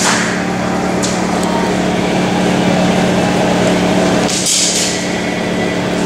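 A loud, steady mechanical hum under a continuous rushing noise, with a short burst of hiss about four and a half seconds in.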